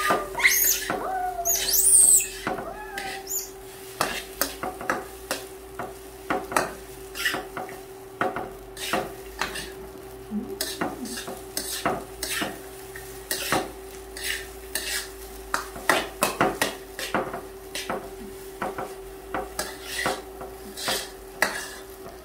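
Metal spatula stirring and scraping fried rice around a steel wok: a run of quick irregular scrapes and clicks over a light sizzle, with a steady hum underneath.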